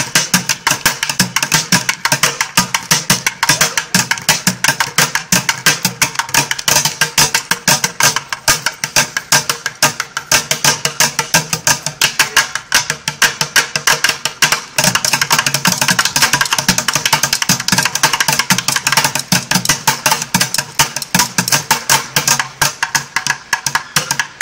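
Two drummers beating plastic buckets with drumsticks: a rapid, unbroken stream of sharp, clacking strikes.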